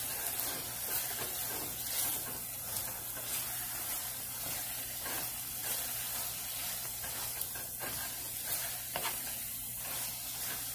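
Chicken and vegetable pot-pie filling sizzling in a hot pan while a spatula stirs it, with light scrapes against the pan now and then.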